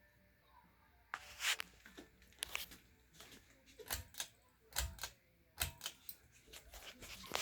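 A string of irregular sharp clicks and knocks, starting about a second in and going on at uneven intervals, several a second at times.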